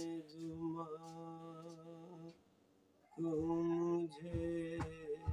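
A man's unaccompanied voice holding long notes of a manqabat melody. It breaks off for a moment a little past two seconds in, takes up another held note, then goes lower. A few soft low knocks come near the end.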